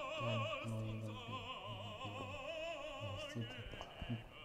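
Music: a high singing voice with a wide vibrato, operatic in style, over short low held notes.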